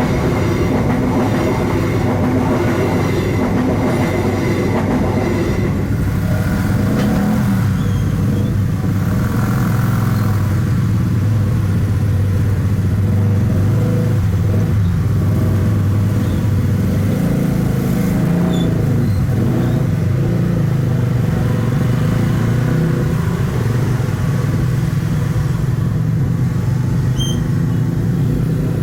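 Engines running steadily and loudly, a low drone with no break.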